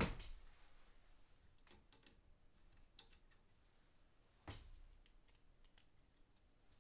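Faint, scattered clicks and taps of airsoft rifle parts being handled and fitted together during a receiver and barrel swap, the loudest a knock about four and a half seconds in.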